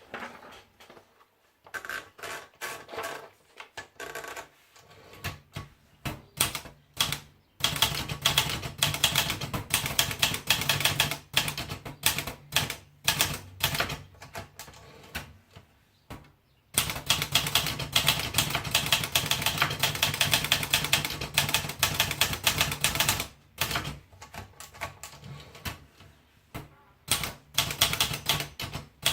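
Olivetti Dora manual portable typewriter being typed on. Scattered keystrokes at first, then fast, steady runs of key strikes from about eight seconds in, with a short break around seventeen seconds, thinning out to scattered strokes again near the end.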